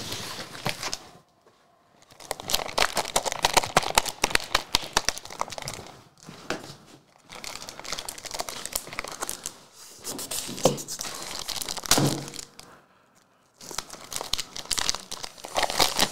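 Plastic wrap on a packet of trading-card top loaders being torn open and crinkled by hand, in several crackling bursts with short pauses between.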